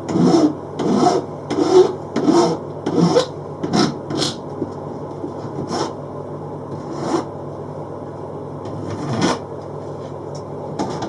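Hand file rasping across the hacksaw-cut end of a rail to straighten the edge: a run of regular back-and-forth strokes for about four seconds, then a few slower, spaced-out strokes.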